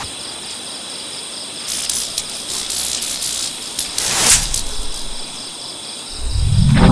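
Night insects trilling steadily at a high pitch. A short whoosh comes about four seconds in, and a loud low swelling drone rises near the end.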